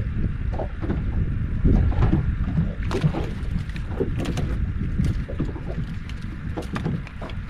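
Wind buffeting the microphone and water lapping against the hull of a small fishing boat adrift, with scattered sharp ticks and knocks as the rod and float rig are handled.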